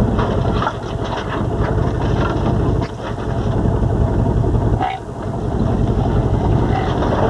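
Truck driving through a creek: engine running with water splashing and sloshing against the truck and scattered knocks, the noise dipping briefly twice.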